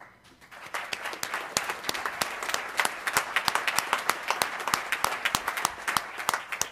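Audience applauding, many pairs of hands clapping at once; the applause builds up over the first second and starts to thin out near the end.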